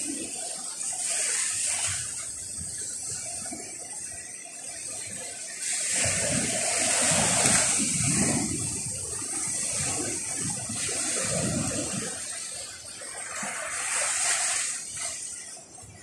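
Baltic Sea surf breaking and washing up a sandy beach, swelling and fading in surges, loudest about six to nine seconds in and again near the end.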